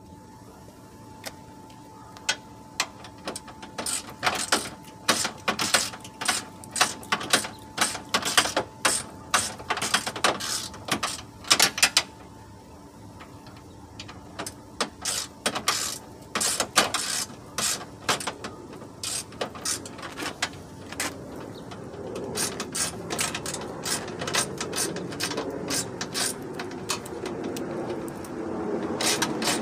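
Hand ratchet wrench clicking in short, quick runs with brief pauses between, as fasteners are worked loose. A low hum builds over the last several seconds.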